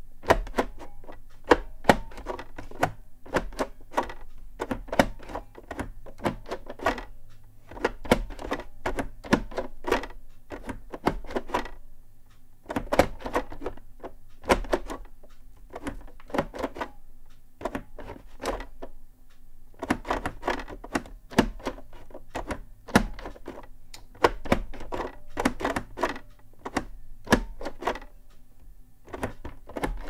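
The two plastic domes of an Orbitouch keyless keyboard being slid and tilted into position to type, giving clusters of clicks and clacks broken by short pauses, over a faint low hum.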